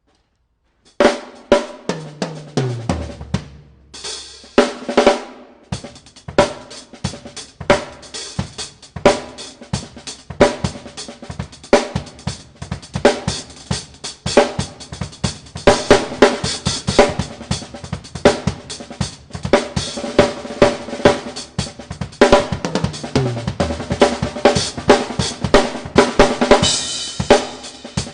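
Drum kit played solo as a fast improvisation: snare, bass drum, hi-hat and cymbal hits in a dense groove. Playing starts about a second in, and there are two fills on toms that step down in pitch, one a couple of seconds in and one about 22 seconds in.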